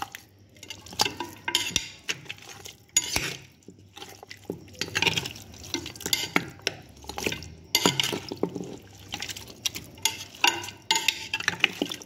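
A metal spoon stirring pieces of beef trotter, sliced onion and water in a steel pressure cooker pot. It makes irregular scrapes and knocks against the pot as the wet pieces are turned over.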